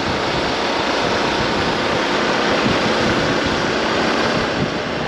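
Wind rushing loudly over the microphone of a moving motorcycle, with the Hero XPulse 200 4V's single-cylinder engine running underneath at a steady speed.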